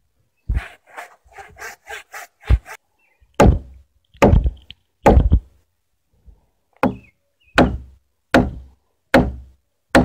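A quick run of hand-saw strokes in a white pine timber, then sharp hammer blows on the beam about one every 0.8 seconds, with a short pause in the middle, knocking at the waste of a hand-cut tenon that has not yet come free.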